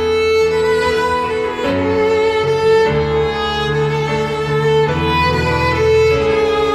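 Background music: a slow piece with long held melody notes over a bass line that changes every second or two.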